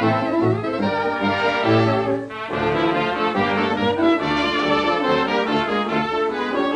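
Brass-led orchestral music from a 1934 sound cartoon score, its notes changing quickly, with a brief dip about two and a half seconds in.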